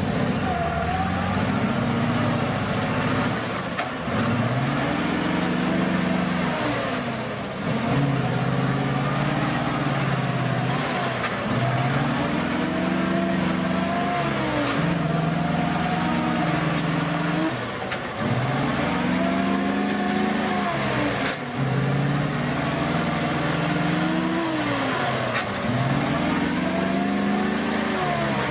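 GAZ-66 off-road army truck's engine revving up and dropping back over and over, about every three seconds, as it churns through deep mud ruts.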